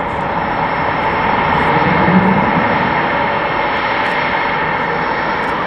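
Jet engines of several Blue Angels F/A-18 Super Hornets running at taxi power: a steady, loud rush with a high, even turbine whine over it.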